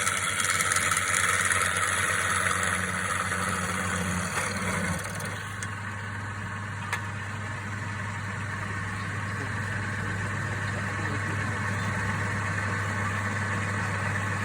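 Wood lathe's electric motor running with a steady hum. Over the first five seconds a higher hiss rides on top and then fades away, leaving the motor alone, with a single click about seven seconds in.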